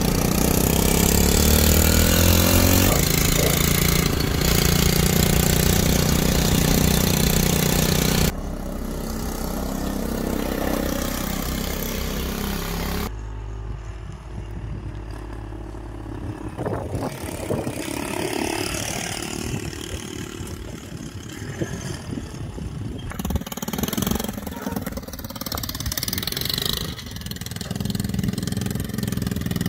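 Engine of a small custom chopper motorcycle running as it is ridden, rising in pitch as it accelerates in the first few seconds. The sound changes abruptly about 8 and 13 seconds in, where the shots cut.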